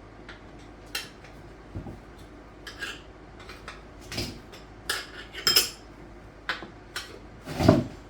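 8-inch metal tire spoons clinking and scraping against a dirt bike wheel rim as the tire bead is levered on in small bites: a dozen or so irregular metallic clinks, the loudest near the end.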